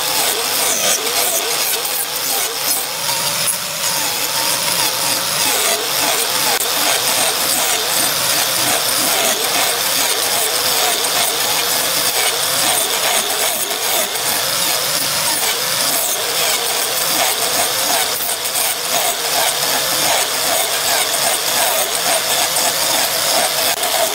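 Angle grinder with a cutting disc running steadily against a spinning block of glued pine strips, the motor's whine under a continuous rasp of wood being ground away.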